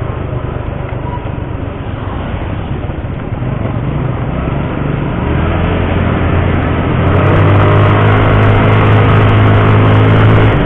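Yamaha Mio Sporty scooter's single-cylinder engine running while riding, under a steady rush of wind noise. The engine tone grows louder from about halfway through.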